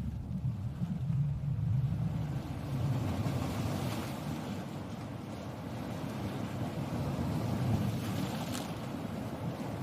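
Sea waves washing in: a continuous rushing surf with a deep rumble, easing a little midway and swelling again near the end.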